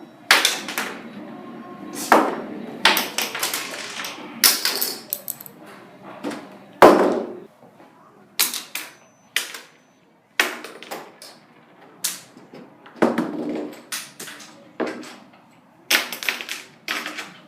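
An irregular run of sharp knocks, clanks and rattles, well over a dozen, of tools and parts being handled while a television set is worked on. The loudest bang comes about seven seconds in.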